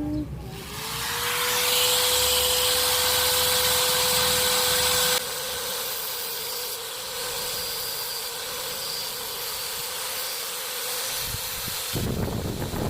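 A steady hiss with a steady tone underneath; it drops sharply in level about five seconds in and carries on more quietly.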